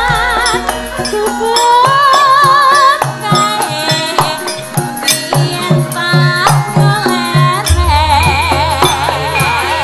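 Javanese gamelan ensemble playing, with struck metallophone notes, hand-drum strokes and a singing voice that wavers in pitch. A deep low note, like a large gong, comes in near the end.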